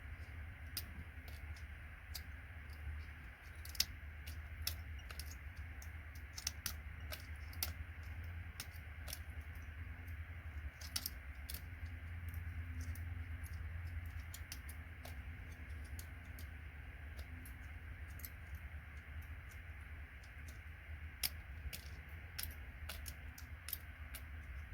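Gold-plated metal pins being pulled out of a plastic computer connector, making irregular light clicks and ticks, over a steady low hum.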